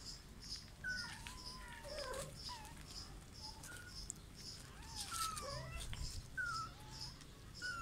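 Several kittens mewing in short, thin, high-pitched cries that rise and fall, sometimes overlapping. A faint, regular high chirp repeats about twice a second behind them.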